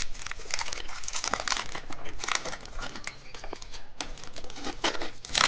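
Plastic candy wrapper being crinkled and opened by hand, with irregular crackles throughout.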